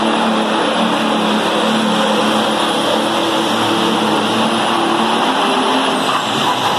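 Pulling tractor's engine running flat out as it drags the weight-transfer sled down the dirt track, loud and steady.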